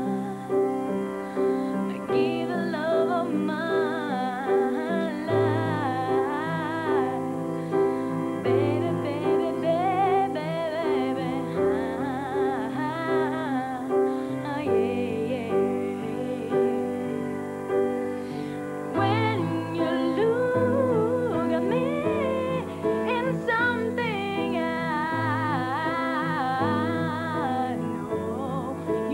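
Slow ballad music: a woman singing with vibrato over held accompaniment chords and bass notes.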